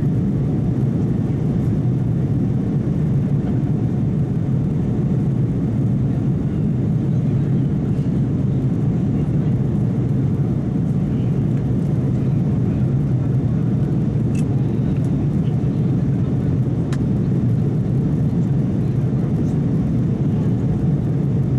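Steady low cabin noise inside an Airbus A330-200 in its climb: a constant rumble of the jet engines and airflow heard from a window seat over the wing.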